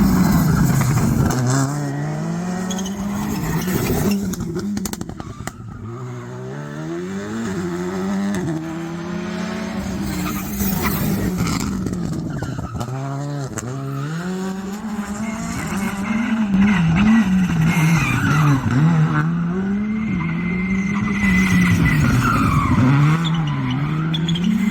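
Rally car engines revving hard, the pitch climbing through gear after gear and dropping back off the throttle, with tyre noise.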